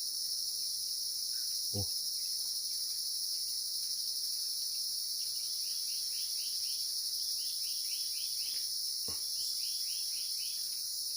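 A steady, high-pitched chorus of insects drones throughout. From about five seconds in, three short bouts of quick repeated calls, each a run of short falling notes, sound over it. Two soft knocks come about two seconds in and near nine seconds.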